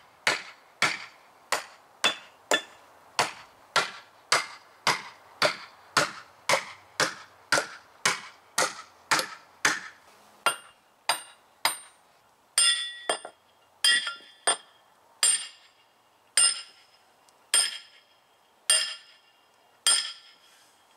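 Sledgehammer pounding steel wedges into the saw cuts of a stump to split it apart: steady blows about twice a second, then after about ten seconds slower blows, about one a second, each with a ringing metallic clang.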